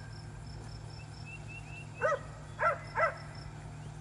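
Three short yelping animal calls in quick succession in the second half, over a faint steady background hum.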